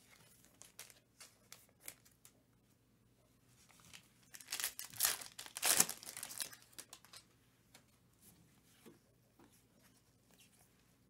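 Foil wrapper of a UFC trading-card pack being torn open and crinkled. The loudest ripping comes from about four to six and a half seconds in, with lighter crackles of foil and card handling before and after.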